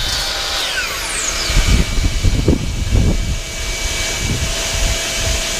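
DeWalt DWS709 12-inch sliding compound miter saw's motor spinning down, its whine falling in pitch over about the first second and a half. This is followed by a run of low thumps and knocks for about two seconds.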